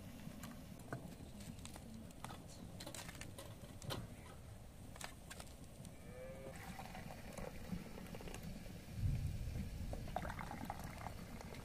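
Tea poured from a kettle into small glass tea cups on a plastic tray, with a few light clicks of glass. A brief low thump about nine seconds in.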